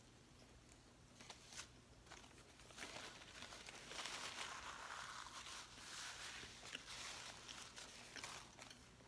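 Faint eating noises: chewing with some crinkling, growing louder about three seconds in and fading near the end.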